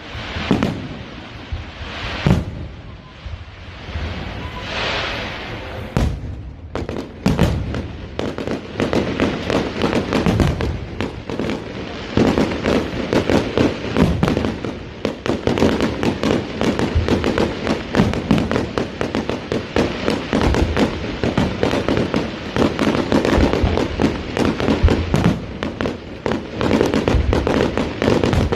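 Fireworks display: scattered bangs for the first few seconds, then from about seven seconds a dense, continuous barrage of bangs and crackling.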